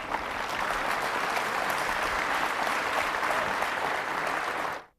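Audience applauding steadily, cutting off abruptly near the end.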